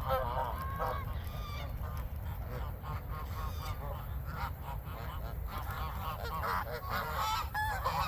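A flock of geese honking, many short calls overlapping one another, over a steady low rumble.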